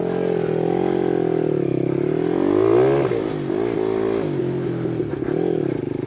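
Monkey bike's small engine revving up and down as it is ridden, the revs rising and falling several times and peaking about halfway through.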